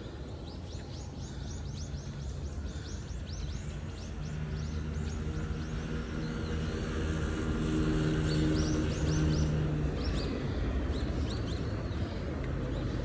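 Small birds chirping in quick, high, repeated calls, over a steady low hum that swells in the middle and then fades.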